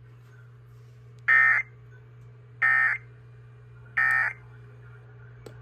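Emergency Alert System SAME end-of-message data bursts on NOAA Weather Radio: three short digital bursts about 1.3 seconds apart, marking the close of a weekly test alert, over a steady low hum.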